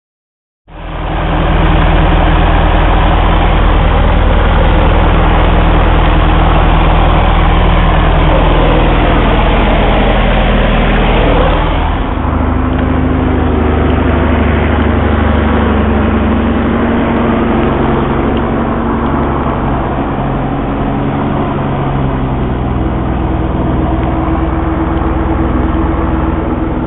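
Propeller-driven piston engine of a Velocity canard pusher aircraft, running loud and steady, starting abruptly just under a second in. About twelve seconds in the sound drops suddenly in level and carries on as a steadier, lower drone.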